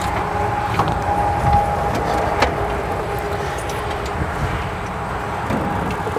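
Steady low mechanical rumble with a thin, faint steady whine over it, and a few light clicks.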